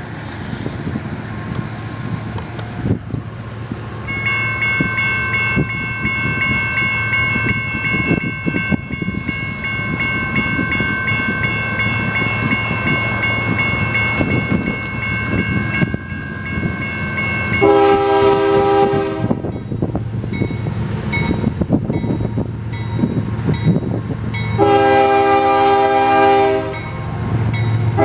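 Freight diesel locomotive approaching with a steady low engine rumble. Its air horn sounds two long blasts, the first about two-thirds of the way in and the second near the end, then begins a short third just at the end. A steady high tone is heard through much of the first half.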